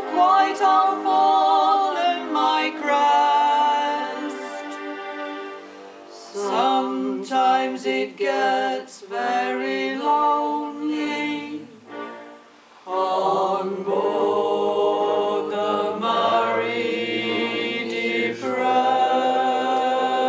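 A small group of voices singing in close harmony, holding long sustained notes, with a brief pause about twelve seconds in before the singing resumes.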